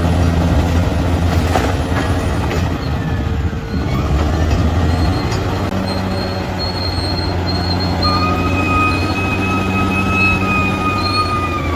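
Bulldozer's diesel engine running steadily under load, with a few faint knocks early on and a steady high-pitched squeal coming in about two-thirds of the way through.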